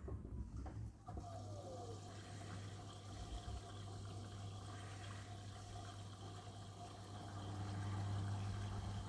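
Miele washing machine coming off its spin, the motor's whine falling in pitch over the first two seconds. Water then runs in steadily over a low hum as the machine fills for the first rinse.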